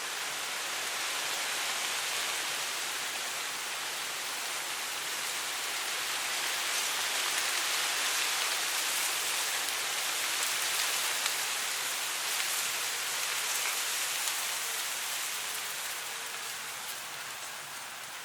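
Wind blowing through tall dry grass: a steady, even hiss of rustling blades that swells in the middle and eases off toward the end.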